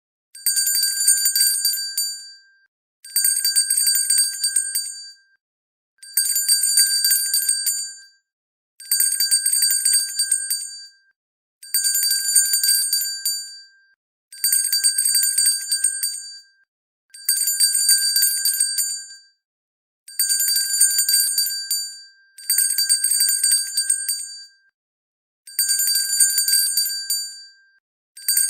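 Hand bell shaken in repeated bursts, about ten of them: each is a fast string of clapper strikes on a high, bright ringing tone lasting about two seconds, followed by a short silence, roughly every three seconds.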